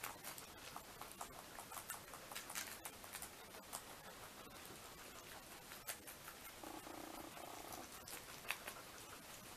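Guinea pigs chewing lettuce and carrot: faint, irregular crunching and clicking of small teeth, with a short low purring call about seven seconds in.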